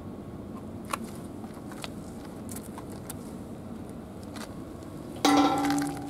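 Steady low background rumble with a couple of light ticks, then about five seconds in a sudden metallic clank from the metal gate that rings on with a clear tone and fades within a second, as the cat pushes through the bars.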